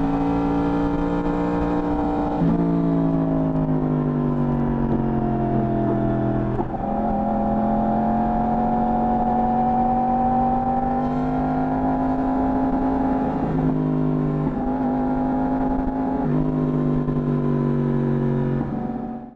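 Yamaha R1 inline-four engine through its stock exhaust, running at moderate, fairly even revs. The pitch steps down about two seconds in and slides lower before jumping back up near seven seconds, as with a gear change or throttle change, then holds steady with a few smaller shifts; the sound stops abruptly near the end.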